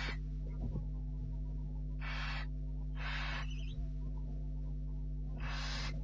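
Barn owlets giving their hissing food-begging calls, the 'snore', as four short hisses of about half a second each, spaced a second or more apart. A steady low electrical hum runs underneath.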